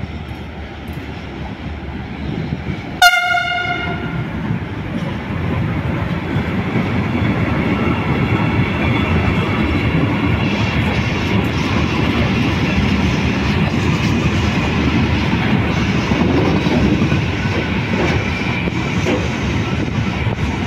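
A DB Cargo Italia E191 (Siemens Vectron) electric locomotive sounds one short horn blast about three seconds in. Its freight train of open box wagons then rumbles past close by, growing louder as the wagons roll through.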